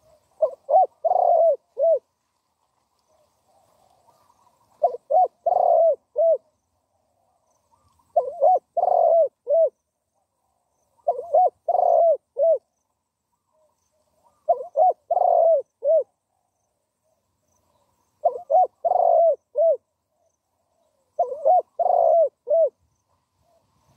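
Spotted dove cooing: seven coo phrases about every three seconds, each a quick run of four or five short notes.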